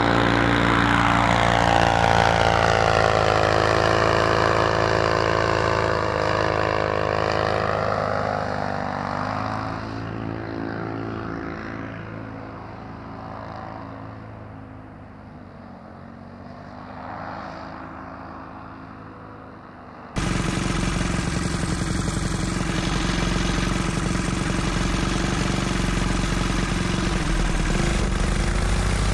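Homemade paramotor's single-cylinder four-stroke engine, fitted with a chambered aluminium muffler, passing by in flight: a steady drone with a swirling, phasing sweep that fades into the distance over about fifteen seconds. About two-thirds of the way in it cuts suddenly to the same engine running loud and steady close up, heard from a camera mounted on the paramotor.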